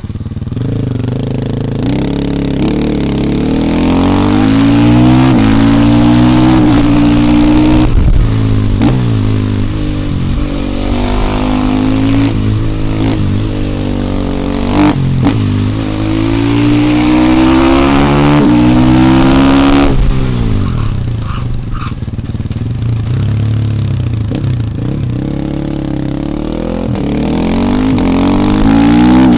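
KTM 450 EXC supermoto's single-cylinder four-stroke engine pulling hard through the gears. Its pitch climbs and drops back at each upshift, again and again. It eases off about two-thirds of the way in, then accelerates once more near the end.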